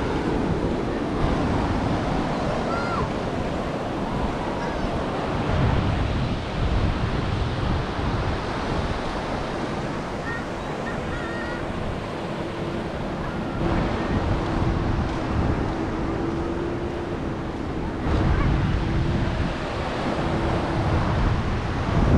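Ocean surf washing onto a beach, with wind gusting on the microphone. A faint steady hum runs through the middle.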